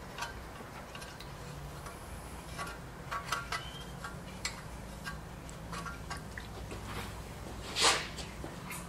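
Quiet workshop room tone with a faint low hum, small scattered clicks and taps from hands handling a small engine and its fuel hose, and a brief rustle near the end.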